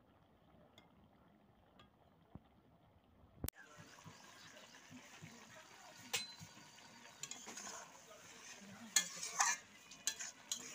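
Metal spatula stirring a simmering fish and potato curry in an iron kadai, scraping and clinking against the pan. Faint at first, then louder after a sharp click about three and a half seconds in, with several sharp clinks near the end.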